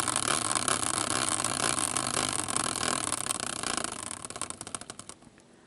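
A prize wheel spinning, its pointer ticking over the pegs: a fast, continuous rattle that slows into separate, widening clicks about four seconds in and stops as the wheel comes to rest.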